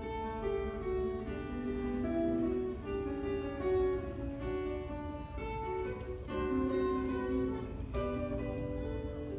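Solo classical (nylon-string) guitar playing a flowing melodic passage of plucked notes over a low rumble.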